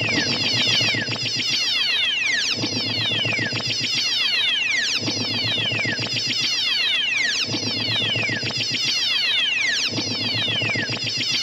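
Synthesized laser-gun sound effect: volleys of quick zaps, each dropping sharply in pitch, fired in bursts that repeat about every two and a half seconds over a low pulsing layer. It cuts off abruptly at the end.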